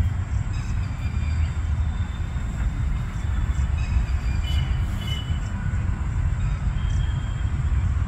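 Outdoor night ambience: a steady low rumble, with faint short high chirps now and then.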